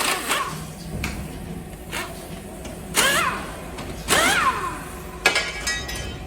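Metal knocks and clanks from car parts being worked on during disassembly, about five separate hits, two of them, around three and four seconds in, followed by short squeals that bend up and down in pitch.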